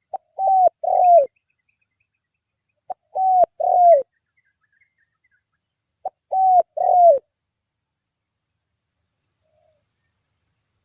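Spotted dove cooing: three phrases about three seconds apart, each a short clipped note followed by two longer coos that drop in pitch. Faint small-bird twittering sounds between the phrases.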